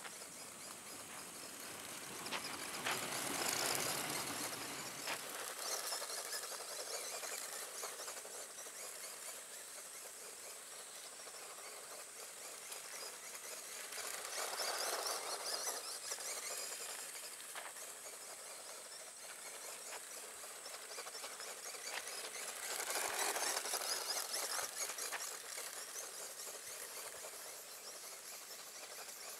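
Tamiya Grasshopper RC buggy driving on loose gravel: its brushed electric motor and gears whine and its tyres hiss over the grit. The sound swells three times as the car runs close, about three seconds in, around the middle and again a few seconds later.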